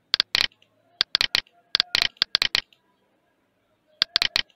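Computer mouse clicking: sharp clicks in four quick clusters of three to five, with short pauses between.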